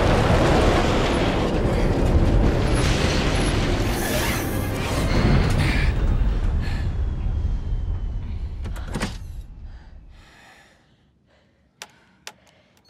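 Large jet aircraft coming down hard on a rough field: a loud rumbling, rattling din that dies away over several seconds as it comes to a stop, with music underneath. A few sharp clicks follow near the end.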